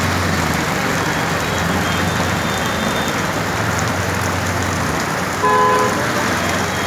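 Steady noise of heavy rain and water over a flooded street, with a vehicle engine running low underneath. A short vehicle horn blast sounds about five and a half seconds in.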